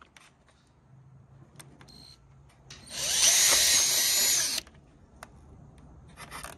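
Cordless drill boring a rivet hole through a Corvette bumper cover: one run of about two seconds, starting about three seconds in, with a high whine over the cutting noise, then a short second burst near the end.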